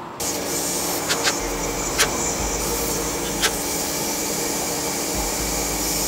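Air-powered hand tool running steadily with a hiss of exhaust air while it loosens the water pump pulley bolts, with several sharp clicks along the way.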